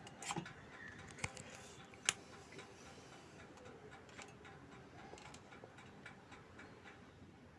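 Faint, light clicks, roughly one a second, the sharpest about two seconds in.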